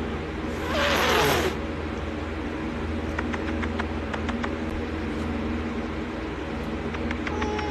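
A domestic cat hisses once, about a second in, over a steady low mechanical hum; faint clicks follow, and a meow begins near the end.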